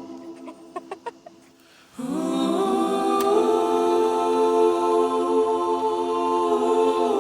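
Background music of sustained choir-like vocal chords. It thins out with a few soft clicks for the first two seconds, then a held chord swells back in and sustains.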